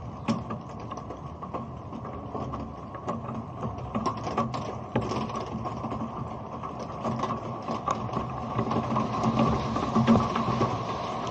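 Rain falling directly on an uncased action camera: drops strike the body near the microphones as dense, irregular ticks over a steady, muffled patter.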